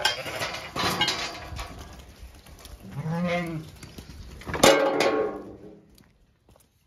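Zwartbles ewes jostling at a feed trough of sheep nuts, with one ewe giving a wavering bleat about three seconds in. A sharp knock with a short ring comes about a second and a half later, and then the sound falls away.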